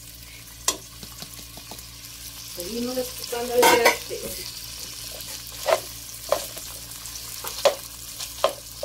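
Chorizo and chopped onion frying in oil in a pan: a steady sizzle while a spatula stirs, with a louder stretch near the middle and several sharp knocks of the utensil against the pan. The onion is being cooked until it softens and turns translucent.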